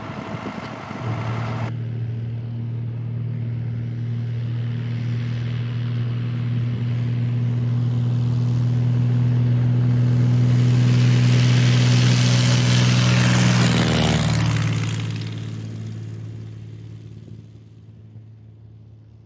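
A small airplane's engine running at full power on its takeoff run, growing louder as it approaches. It passes about 14 seconds in with a drop in pitch, then fades into the distance. A hiss of noise cuts off suddenly near the start.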